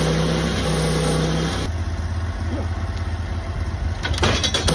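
Sawmill's engine running steadily; its tone shifts about a second and a half in, and a few knocks sound near the end.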